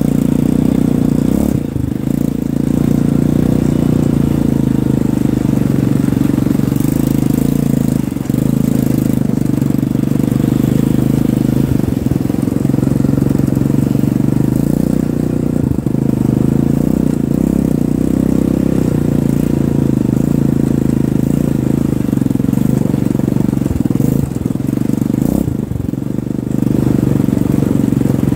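Quad bike (ATV) engine running with a steady low drone, dipping briefly now and then.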